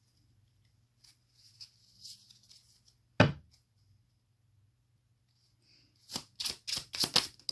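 Tarot cards being handled on a table: soft sliding rustles, a single sharp tap about three seconds in, then a quick run of crisp card clicks and snaps near the end.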